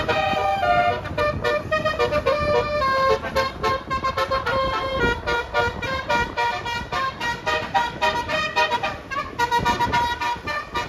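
Bus basuri telolet horn playing a multi-note tune, its tones chopped into rapid on-off 'dut dut' pulses, several a second, with the pitch stepping from note to note.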